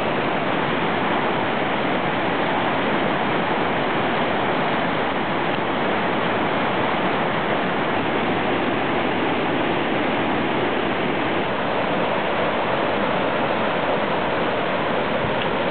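Whitewater rapids of a steep boulder creek rushing loudly and steadily, water pouring over and around rocks.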